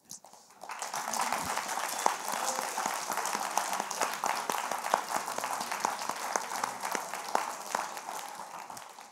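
Audience applauding, many hands clapping together; it builds up about a second in, holds steady, and tapers off near the end.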